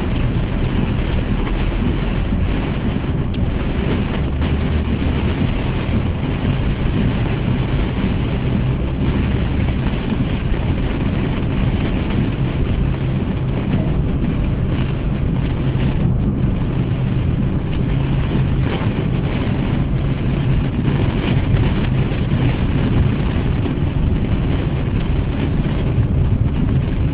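Steady noise inside a moving car driving through a downpour: rain hitting the windscreen and body over tyre and engine noise.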